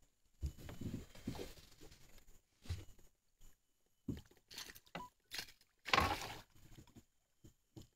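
A hooked giant snakehead (toman) thrashing at the surface beside a small boat, making a series of splashes. The biggest splash comes about six seconds in, and there are a few low thumps in the first couple of seconds.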